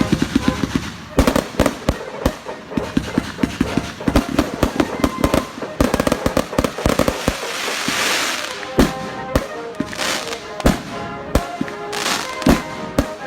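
Fireworks going off in quick succession: a dense run of sharp bangs and pops, with a burst of crackling hiss about eight seconds in.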